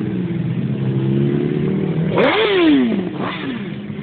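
Sport motorcycle engines running as the bikes ride slowly past. About two seconds in, one engine revs sharply, its pitch rising and then falling, followed a second later by a shorter rev.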